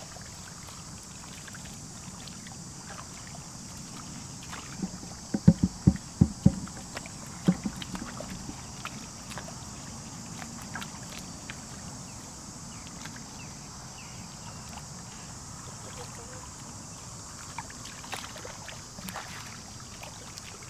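Hands splashing and sloshing in shallow muddy water while groping in the mud for fish, with scattered small wet clicks over a steady high hiss. A quick run of loud, low splashing slaps comes about five to seven seconds in.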